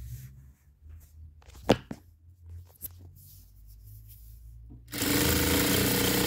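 Industrial sewing machine running a short burst of stitching, about a second and a half long, near the end. Before it, the fabric is handled under the presser foot over a low hum, with a sharp click about two seconds in.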